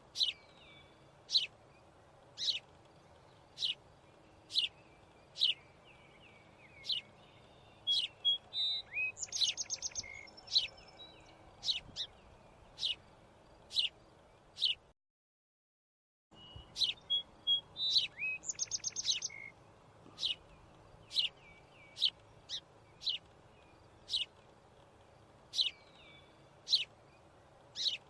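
Birds chirping: single short, high chirps about once a second, with a fast trill twice. The sound drops out completely for about a second midway.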